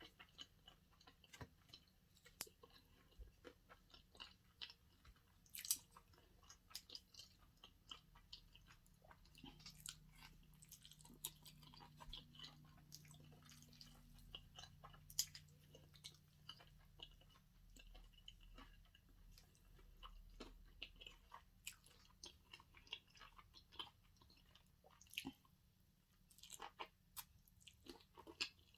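Faint, close-up mouth sounds of a person chewing sushi: scattered soft clicks and smacks at an uneven pace, a few of them louder.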